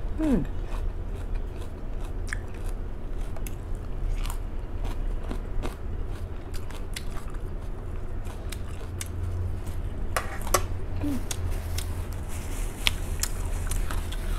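Close-miked chewing of crisp lettuce salad: wet crunching with many short, sharp mouth clicks, over a steady low hum.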